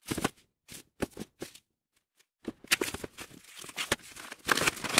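Cardboard figure box being opened by hand: a few short scuffs and taps as the top flap is lifted, then after a brief pause a longer run of cardboard and plastic packaging rubbing and rustling as the box is handled.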